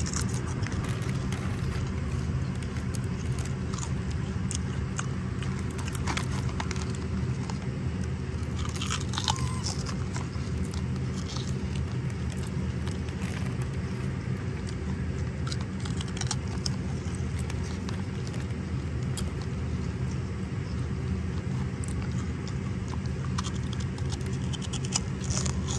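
Baby monkey chewing and crunching a crisp snack: scattered small crunchy clicks, over a steady low hum.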